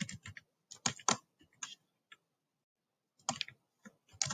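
Computer keyboard being typed on: short bursts of key clicks, with a pause of about a second in the middle.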